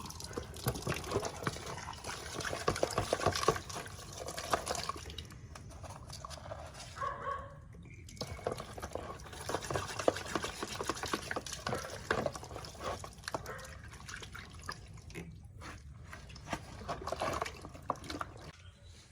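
Water splashing and dripping in irregular bursts, with wet clicks, as hands work in water.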